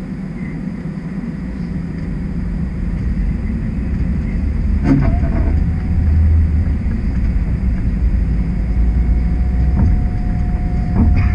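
Toronto streetcar heard from inside, its low rumble swelling as it pulls away from a stop. There is a sharp knock about halfway through, and a thin steady tone sounds through the second half.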